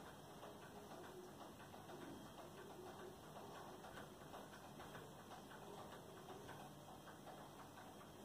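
Near silence: faint room tone with faint, irregular light ticks.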